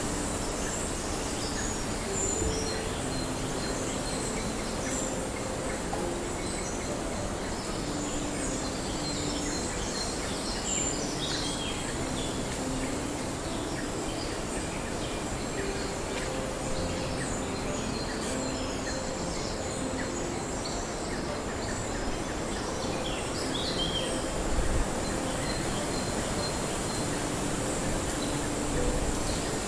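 Tropical rainforest ambience: a steady hiss with scattered short bird chirps and a thin, steady high whine, and soft low held tones underneath.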